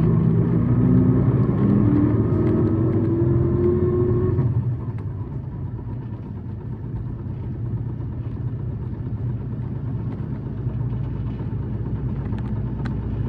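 City bus diesel engine revving up under acceleration, its note rising steadily. About four and a half seconds in the note falls away and the bus runs on with a quieter, steady engine and road drone.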